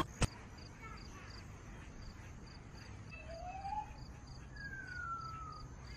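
Crickets chirping in a steady, regular pulse a few times a second, quiet, with a couple of faint gliding calls, one rising and one falling. A single sharp click sounds just after the start.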